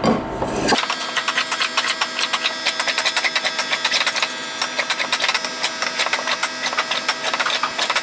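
Block plane shaving the edge of a walnut board in quick, closely spaced strokes, truing the edge for a seamless glue joint. The sound changes abruptly about a second in.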